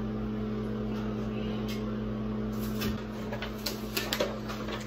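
A steady low hum that fades out about three seconds in, then the crinkling and crackling of peel-and-stick wallpaper's white backing liner being handled, with a few sharp crackles near the end.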